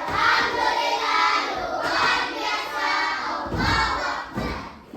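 A group of children shouting together in chorus, a loud group chant with a few thumps about three and a half to four and a half seconds in.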